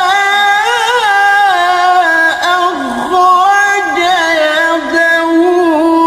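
A qari's voice reciting the Quran in the melodic tilawah style, holding long ornamented notes that waver and slide up and down in pitch, with a few short breaths between phrases.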